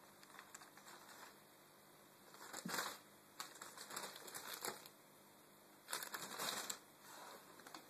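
Plastic bag rustling and crinkling in three bursts as a cat digs into it.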